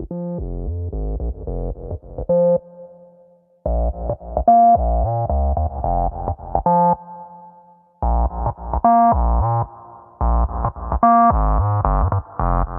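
Background electronic keyboard music: a synthesizer melody over a heavy bass line, played in phrases that break off briefly about three seconds in and again near eight seconds.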